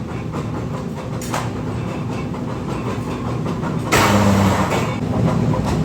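Heavy factory machinery running with a steady rattling clatter and low rumble. About four seconds in, a loud hiss cuts in over it.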